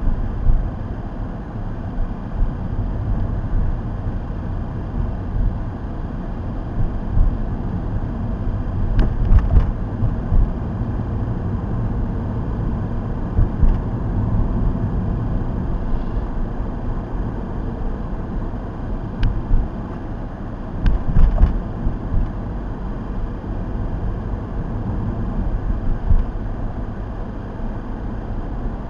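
Steady road and engine noise from a moving car, picked up inside the cabin by a dash cam's built-in microphone, with a few short knocks and clicks.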